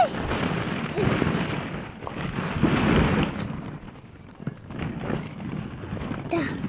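Hollow plastic ball-pit balls clattering and rustling against each other as someone wades and kicks through them, in surges for the first few seconds, then quieter.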